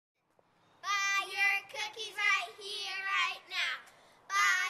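Two young girls chanting a Girl Scout cookie cheer in high, sing-song voices, starting about a second in, in short rhythmic phrases.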